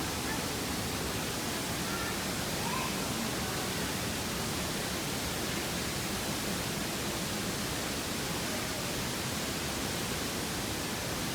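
Steady rushing of a waterfall, an even hiss of falling water with no break.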